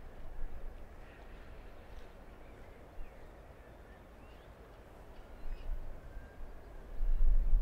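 Wetland ambience: a few faint, scattered bird calls over a low rumble, which swells loudly near the end.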